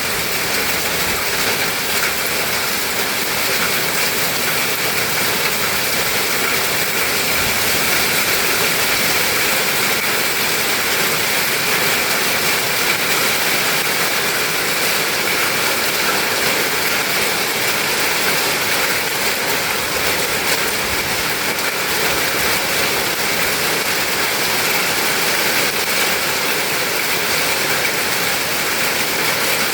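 Heavy storm rain mixed with hail beating down steadily, a dense unbroken hiss with many small rapid hits.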